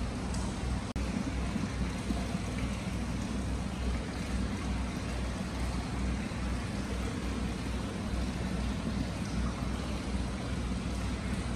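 Free-flowing hot spring water pouring and splashing steadily into a stone basin and an indoor bath, a constant rushing sound. There is a brief dropout about a second in.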